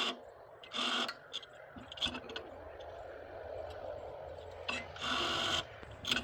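Two short scraping rubs and several sharp clicks and knocks of metal rigging being handled, with a faint steady hum underneath from about two seconds in.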